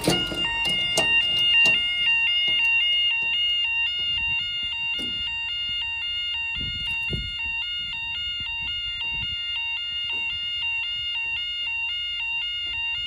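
Level crossing warning alarm sounding steadily, two tones alternating over and over, while the crossing barriers are lowered for an approaching train. A few sharp clicks come in the first two seconds.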